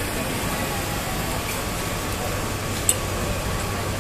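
Steady rushing noise of floodwater churned along the tracks as a suburban electric train moves slowly through it, with one sharp click about three seconds in.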